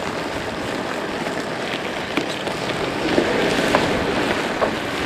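Diesel engine of a JCB telehandler running as the machine drives over rough ground, with four sharp knocks from about two seconds in.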